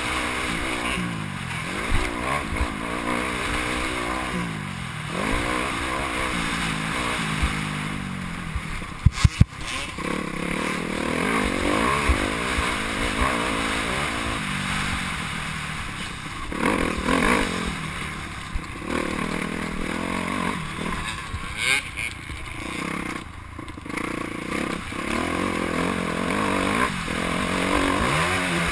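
Motocross bike engine heard from the rider's helmet camera, revving up and dropping back over and over as the rider accelerates and shifts. A few sharp knocks come about nine seconds in.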